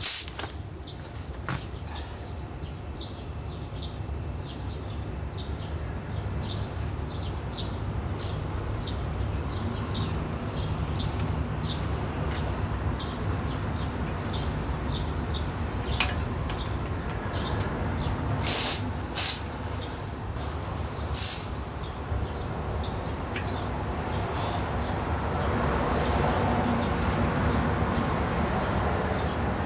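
A few short hisses of air at a bicycle tyre valve as a pump hose and gauge are worked onto it, the three loudest close together past the middle, over a steady low background rumble.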